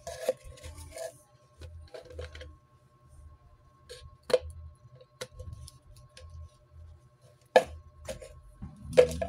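Scissors snipping through a thin plastic bottle, with the rustle and knock of the plastic being turned in the hands. The snips come irregularly, a few sharp ones standing out, the loudest about halfway through and near the end.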